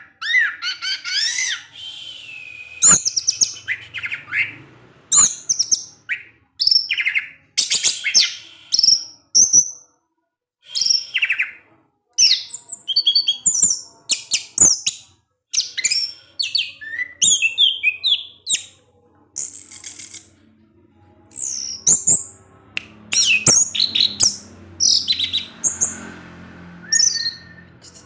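Orange-headed thrush singing a long, varied song of short whistled and chirping phrases, many sliding up and down in pitch, with brief pauses between them.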